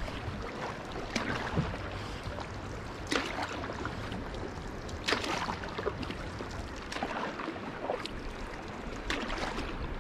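Canoe on a river: water sloshing and splashing against the hull about every two seconds, over a steady low rumble.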